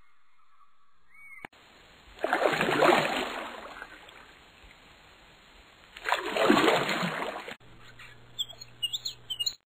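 Sea waves breaking and washing out twice, about four seconds apart, each surge swelling and then fading. Near the end, short high bird calls over a low steady hum.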